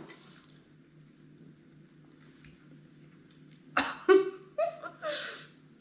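A woman laughing in a few short bursts, starting about two-thirds of the way in, after a quiet stretch with only a faint steady room hum.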